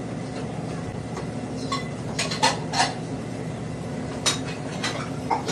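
Scattered clinks and clatter of dishes and metal utensils in a commercial kitchen, several sharp clinks a few tenths of a second to a second apart, over a steady low hum.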